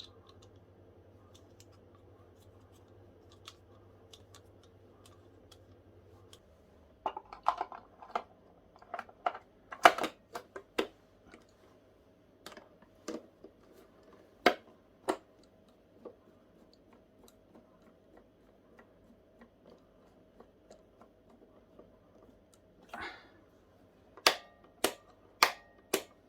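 A faint low hum that stops about a quarter of the way in, then scattered sharp clicks and light knocks, bunched in the middle and again near the end.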